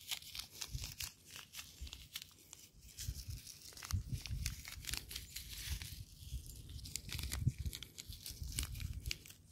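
Seed packets crinkling and rustling in the hands as vegetable seeds are handled for sowing, with many small crackles and some low, dull bumps.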